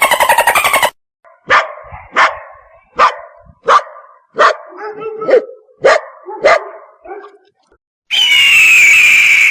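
A dog barking: about eight sharp barks in a steady series, roughly one every 0.7 seconds. It is framed by other loud animal sounds: the end of a rapid, rattling call with falling pitch in the first second, and a loud, high, sustained tone gliding slowly down that starts near the end.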